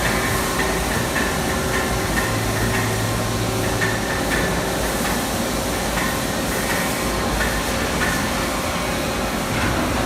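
WELE MG-650Z4 gantry-type double-column CNC machining center running: a steady mechanical hum and hiss with a row of short light ticks, and a deeper low hum for about two seconds shortly after the start.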